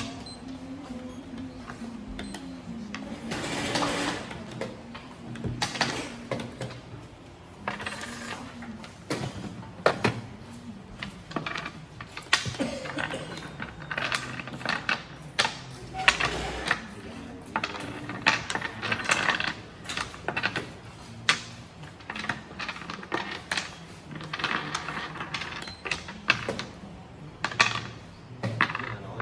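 Xiangqi pieces clacking down on the board during play: many short, sharp clicks at irregular intervals.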